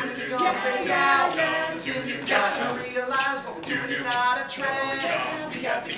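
A group of young men's voices singing a boy-band pop song together without instruments.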